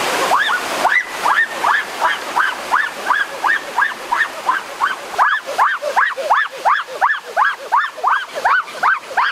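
Stream noise cuts off just after the start. A fast, very regular series of honking calls follows, each rising then falling in pitch, about three a second.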